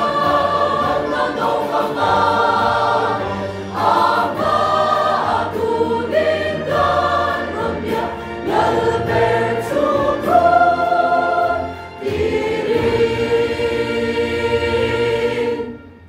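Mixed church choir singing a Mizo hymn in parts, ending on a long held final chord that is cut off sharply near the end.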